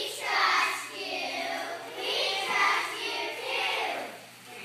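A group of young children singing together in unison, in several phrases with short breaks between them.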